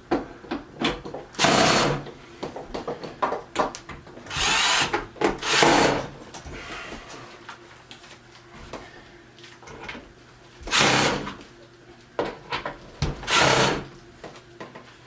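Power drill run in five short bursts, driving fasteners while assembling the sides of a flat-pack kitchen cart, with light knocks and clicks of parts being handled between the bursts.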